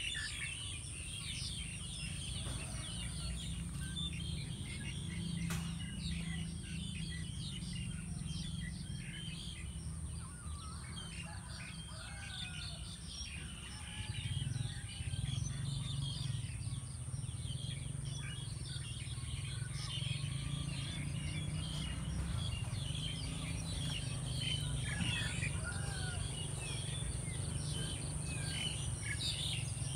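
Outdoor ambience of many small birds chirping, over a steady low rumble and a constant high-pitched whine.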